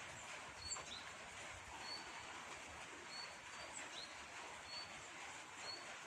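Small birds chirping: short high chirps, some falling in pitch, repeated about once a second over a faint steady outdoor hiss.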